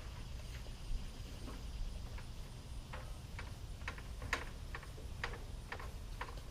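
Scattered light clicks and knocks, irregular and a few at a time, over a low steady rumble.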